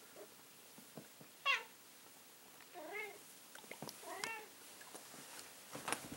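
Orange tabby house cat meowing three times, short calls about a second and a half apart, the first the loudest. A few light clicks near the end.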